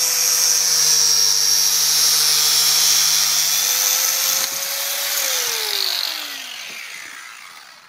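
Angle grinder cutting through a bike lock, a steady high-pitched whine with a hissing grind. About five seconds in it is switched off and winds down, its pitch falling as it fades away.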